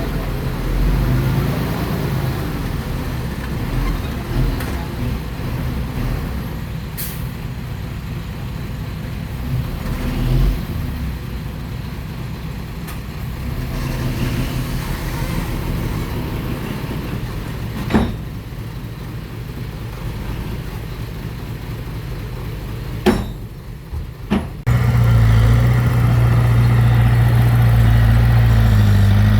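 Heavy diesel engine of earthmoving machinery running, with a few sharp knocks. About three-quarters of the way through it changes abruptly to a louder, steadier engine sound.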